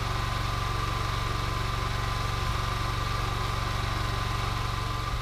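Gas-engine pressure washer (4,000 PSI) running steadily while it waits with the trigger off, a constant mechanical drone with an even fast pulse.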